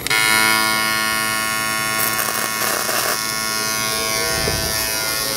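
MIG welding arc on aluminum pipe, run from a Lincoln Electric Power MIG 255C with a spool gun on 100% argon: a steady, even buzz that starts abruptly as the arc strikes and holds through the weld.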